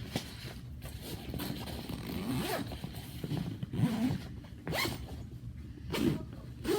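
A bag's zipper being pulled, in several separate strokes.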